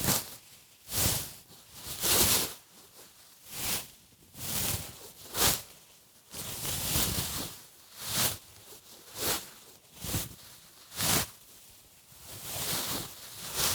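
Burlap fabric rubbing: a series of rough, rustling swishes, about one a second and uneven in length and strength.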